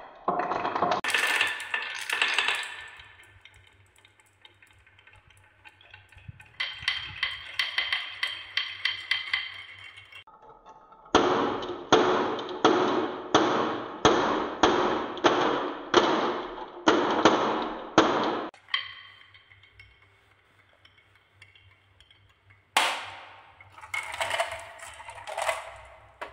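Glass marbles clinking and rattling through a wooden marble run: a jumble of clicks as a batch spins round the wooden spiral, then a very regular series of clacks, under two a second, as marbles leave the wavy wooden track and drop into a plastic toy dump truck's bed. Near the end, marbles rattle and knock together in the truck bed as it is moved.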